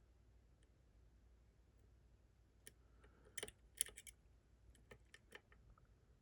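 Faint clicks and ticks of a lock pick working the pins inside a Ruko Combi 2 lock. A scattered cluster of sharp ticks starts a little over two and a half seconds in, after a near-silent stretch.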